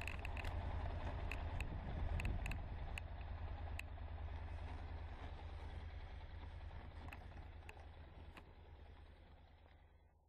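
Honda NC700X's 670 cc parallel-twin engine running, heard from a camera on the fuel tank as a steady low rumble with road and wind noise, fading away steadily toward the end. A few short sharp ticks sound in the first few seconds.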